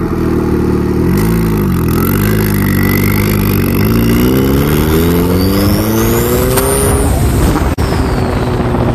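Turbocharged PT Cruiser's four-cylinder engine accelerating hard, with a thin turbo whine climbing steadily in pitch as the newly fitted turbo kit builds boost. About seven seconds in the throttle is released: the engine note drops and the whine falls away.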